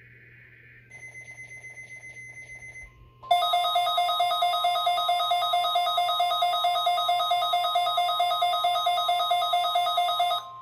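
NOAA Weather Radio emergency alert: the SAME digital header's rapid warbling data bursts, then about three seconds in the steady 1050 Hz warning alarm tone starts. Weather radio receivers' loud, rapidly pulsing alarm beeps sound over it until near the end.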